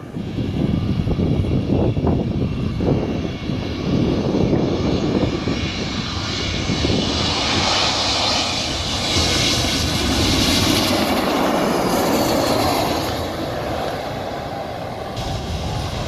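Loud, steady rushing noise like jet aircraft engines. It grows brighter and higher from about six seconds in, then eases off near the end.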